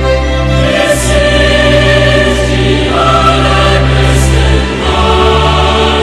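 Background music: a choir singing long held chords over deep sustained bass notes, the chord changing every second or two.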